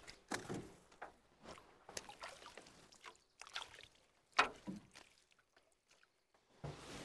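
Water splashing and sloshing in short irregular bursts, with the sharpest splash about four and a half seconds in.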